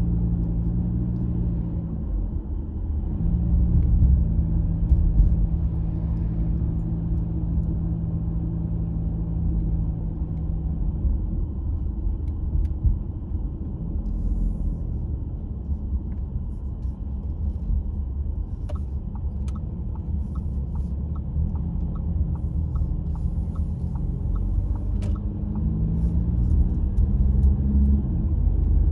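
A car driving on city streets: a steady engine and road rumble with an engine hum that holds for a while and then fades about a third of the way in. Later a run of light, evenly spaced ticks, about three a second, lasts for several seconds.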